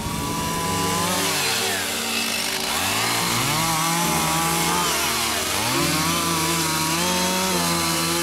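Two-stroke gasoline chainsaw cutting through the limbs of a felled tree, its engine pitch climbing and dropping back several times as it bites into the wood and eases off between cuts.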